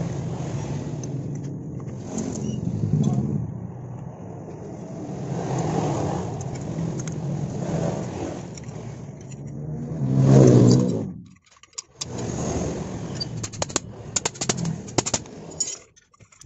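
A motor vehicle's engine runs steadily, swells to a loud peak about ten seconds in, then drops away. Light metallic clicks and clinks follow as the clutch spring compressor is worked on the CVT driven pulley.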